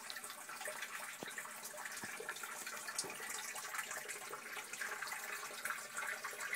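Groundwater rushing steadily from the weeping-tile drain into a sump pit, filling it at quite the rate.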